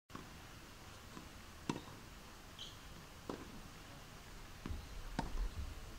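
Faint outdoor ambience over a hard tennis court, with a few sharp knocks spaced a second or more apart that fit tennis ball hits and bounces on the court. A single short high chirp comes about halfway through.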